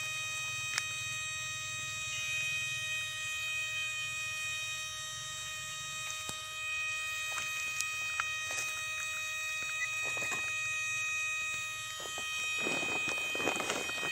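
Battery-powered electric rat shocker (an inverter rig on a car battery) giving a steady high whine over a low hum, with a few faint clicks. Near the end a louder rustling, crackling noise comes in.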